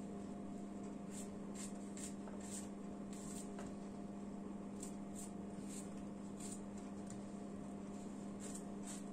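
Faint, irregular taps and clicks of a knife cutting apple pieces against a cutting board, over a steady low hum.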